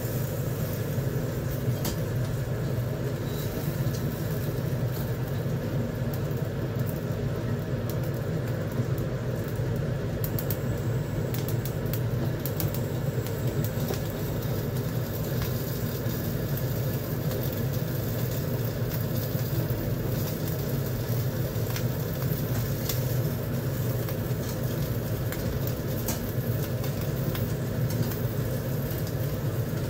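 Steady low roar of a portable gas stove's burner flame under the fish grill, with a few light clicks about ten seconds in.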